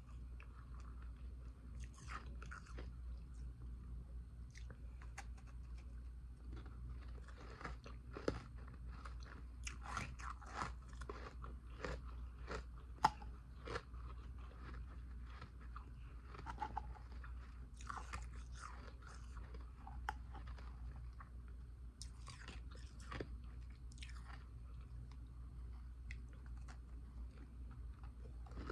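A person biting and chewing ice close to the microphone: an irregular run of crisp crunches, the sharpest about eight and thirteen seconds in.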